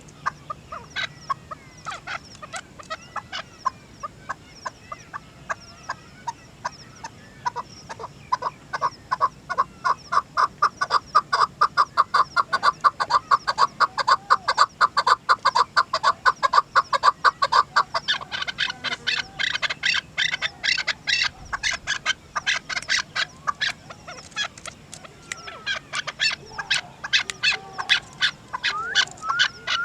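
Chukar partridge (desi chakor) calling: a long series of rapid, repeated clucking notes, growing louder through the middle, with higher-pitched notes joining in the later part.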